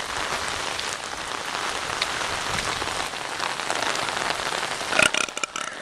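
Steady rain falling, with many fine drop ticks. A brief louder noise comes about five seconds in.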